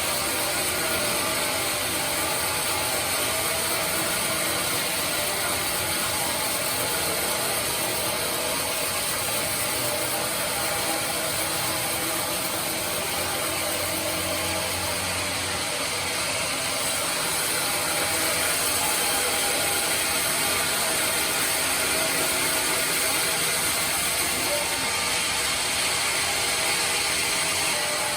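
Band sawmill running with a steady, even mechanical noise and a strong high hiss.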